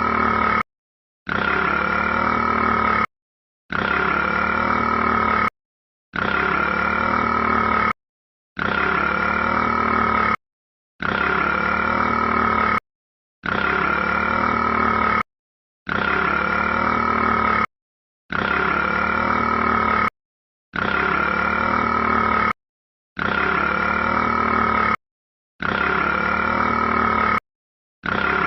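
A rat burping, played as a loop: the same burp, just under two seconds long, repeats about every two and a half seconds, about a dozen times, with dead silence between repeats.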